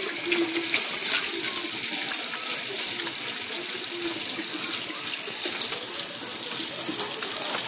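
Water running steadily from a tap into a sink, rinsing off soap lather after a lather test.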